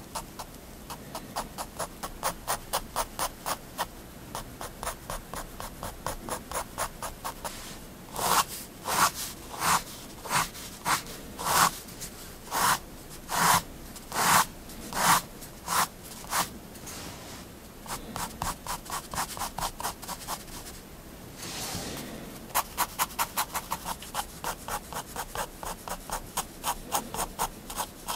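A Staedtler triplus 0.3 mm fineliner tip scratching across paper in quick, short hatching strokes, several a second. In the middle comes a run of slower, longer and louder strokes, about one a second.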